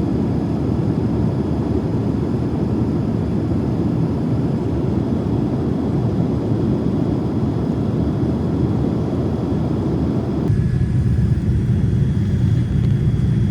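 Steady rumbling noise of a moving vehicle, which changes suddenly about ten seconds in to a deeper rumble.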